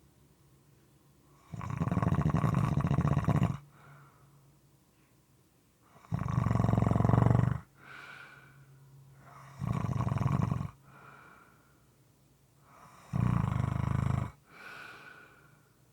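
Moist, somewhat irregular snoring: four loud snores spaced three to four seconds apart, each followed by a softer breath.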